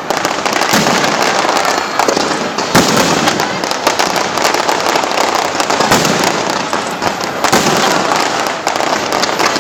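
Fireworks display: a dense, continuous crackling of many small bursts, with louder bangs standing out every second or two.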